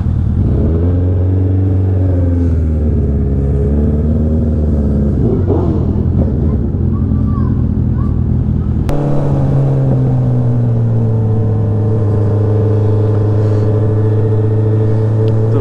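Suzuki Hayabusa's inline-four engine revving up and down at low speed. About nine seconds in, an abrupt cut, after which the engine holds a steady note under way.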